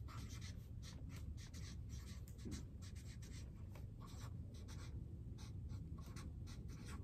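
Felt-tip marker writing on flip-chart paper: a run of short, quick strokes as words are written out.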